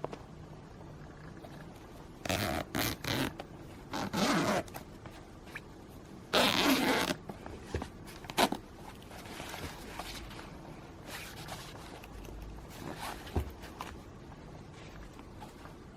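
Zipper on a padded laptop case pulled in several short strokes, the longest about six and a half seconds in, with a few light clicks and handling rustles afterwards.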